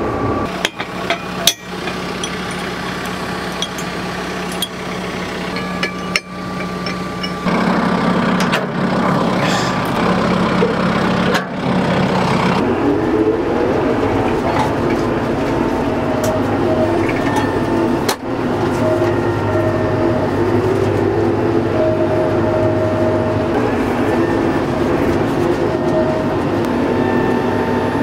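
Kubota M4 tractor's diesel engine running steadily, its note stepping up about a third of the way in and changing again a few seconds later, with a few sharp metallic knocks.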